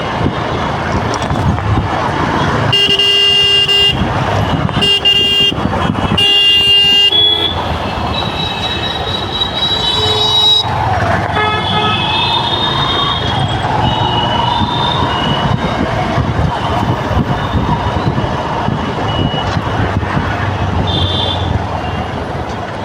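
Traffic jam noise: steady engine and road noise with vehicle horns honking over it. One horn gives three long blasts in the first seven seconds, then several other horns of different pitches sound.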